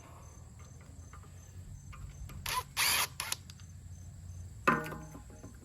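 Hand-tool and metal work on a large electric motor as its bolts are being taken out: scattered clicks, a loud short rasping burst about halfway through, then a sharp metallic strike with a brief ring near the end.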